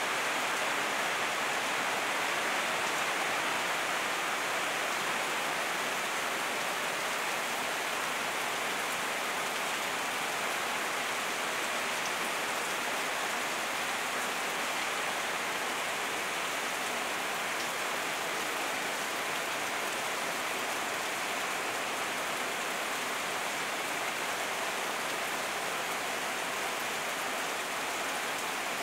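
Steady heavy rain falling on broad leaves and waterlogged grass, an even hiss with no break.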